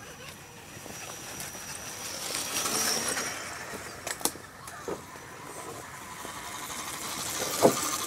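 Radio-controlled scale crawler truck driving over rock and dry fallen leaves: its motor and drivetrain running with the rustle of leaves under the tyres, and a few sharp clicks and knocks, the loudest near the end.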